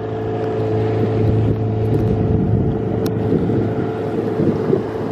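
A sailboat's engine running steadily under way, a constant low drone with water and wind noise.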